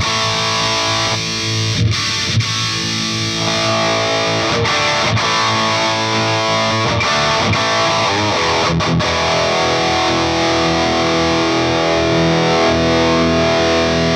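Electric guitar through a Peavey Bravo 112 all-tube combo on its high-gain channel, with the mids scooped, playing heavily distorted riffs with short choked breaks. About two-thirds of the way in, the chords are let ring and held.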